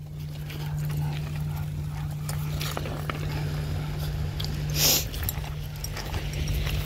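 Footsteps and dogs' paws crunching and clicking over loose beach pebbles, irregular and ongoing, with one louder scrape of stones about five seconds in.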